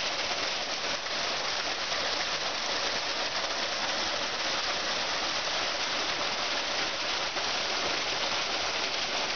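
Steady hiss of water.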